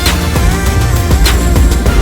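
Loud background music with a heavy bass, gliding synth tones and a crashing beat about every second.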